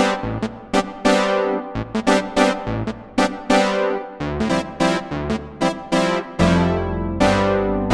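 Nord Electro 6D stage keyboard playing a preset from a worship sound pack: a quick run of struck, piano-like notes, each fading away, over held low bass notes.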